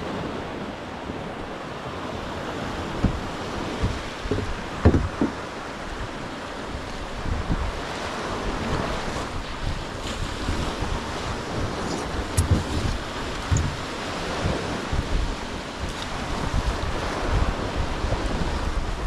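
Small waves breaking and washing up a beach, with gusty wind buffeting the microphone. A few short knocks come about five seconds in.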